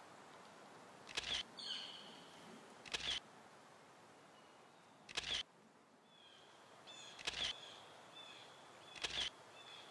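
Camera shutter clicks, five of them about two seconds apart, each a quick double click. Birds chirp faintly in between, more often in the second half.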